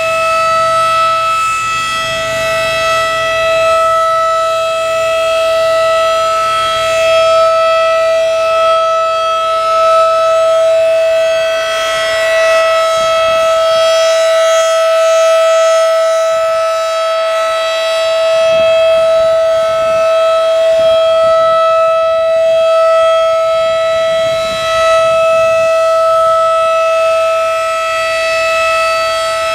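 Federal Signal 2001-DC electromechanical outdoor warning siren sounding a loud, steady single tone during its routine test, the pitch holding level while the loudness swells and fades slightly.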